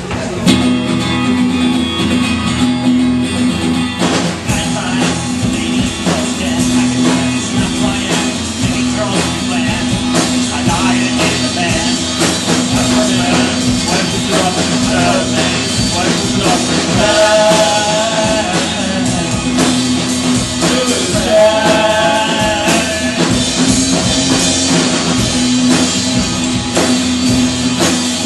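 Live rock band kicking into a song about half a second in, then playing on at full volume.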